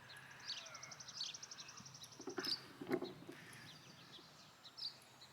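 Birds chirping in short falling notes, with a rapid high trill behind them. A few sharp knocks come about halfway through and are the loudest sounds.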